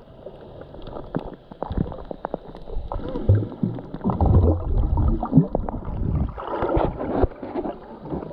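Water sloshing and gurgling with irregular splashes and knocks, growing louder from about three seconds in.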